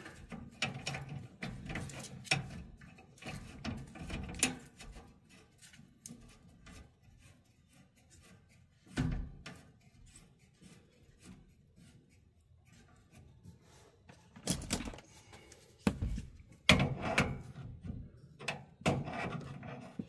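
Handling noises from work on a furnace's gas line and shutoff valve: scattered knocks, clicks and rubbing of metal fittings. The loudest knocks come in a group near the end.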